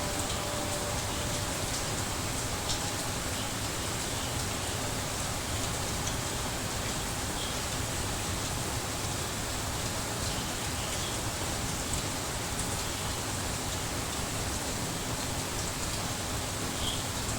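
Steady rain ambience: an even hiss of falling rain, with a few faint drop ticks.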